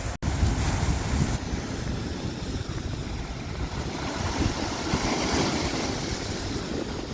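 Steady roar of rushing water, with wind buffeting the microphone in an uneven low rumble.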